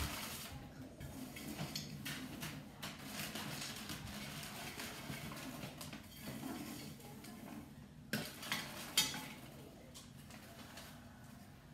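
Popcorn being scooped out of a popcorn machine's kettle cabinet and into a popcorn bag: irregular rustling, scraping and clattering, with a few sharper knocks about two-thirds of the way through.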